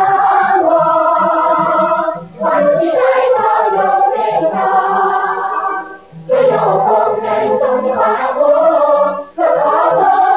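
Background music: a choir singing in phrases, each broken by a short pause about every three to four seconds.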